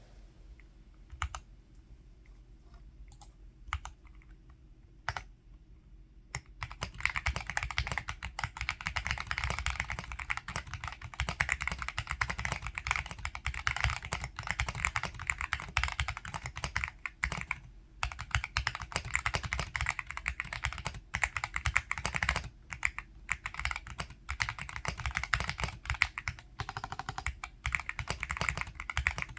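Typing on a Yunzii AL66 mechanical keyboard with Gateron Milky Yellow v2 linear switches, not factory-lubed. A few single keystrokes at first, then fast continuous typing from about six seconds in.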